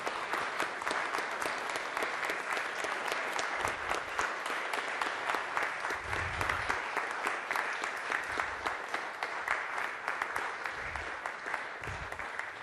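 Audience applauding steadily, many hands clapping at once, tapering off near the end.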